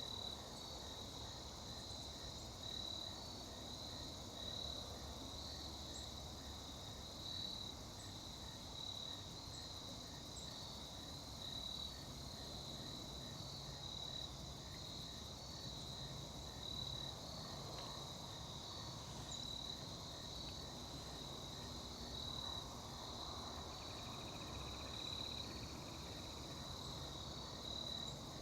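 Insect chorus, crickets by their sound, singing a continuous high-pitched trill that pulses at a regular beat, over a faint low rumble.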